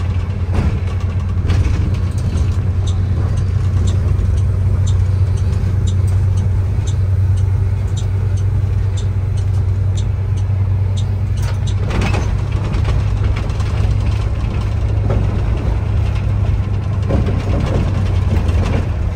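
An airport apron bus's engine and road noise heard from inside the cabin as it drives: a steady low drone. A light, regular ticking, about two a second, runs through the first half.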